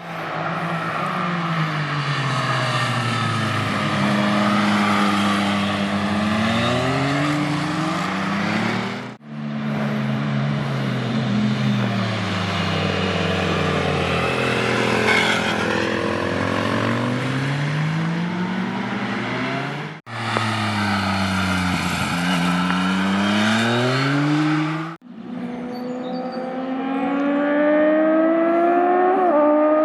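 Honda VFR750F (RC36) motorcycle's V4 engine accelerating hard, its pitch climbing and dropping back at each gear change, then falling away, over several clips cut one after another. The last clip, from about three-quarters of the way in, holds a steadier pitch that rises slowly.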